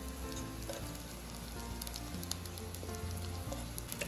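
Eggplant slices sizzling and crackling in hot oil in a frying pan, under soft background music with sustained notes.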